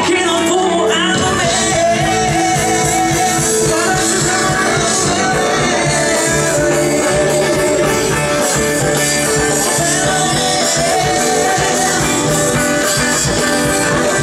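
Live band playing a song with a singer's voice over it, amplified through the stage PA at a sound check; the bass and drums come in fully about a second in and carry a steady beat.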